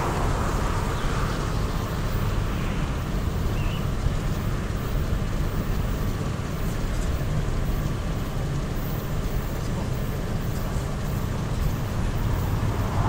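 Steady low rumble of wind buffeting the microphone, with the hiss of a road vehicle fading away in the first second or so.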